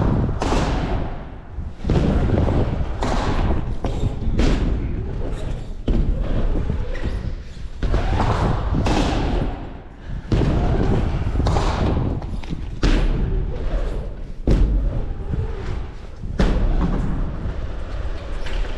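BMX bike riding ramps, heard from a chest-mounted camera: a steady rumble of tyres rolling, broken by many sudden thumps as the wheels land and hit the transitions.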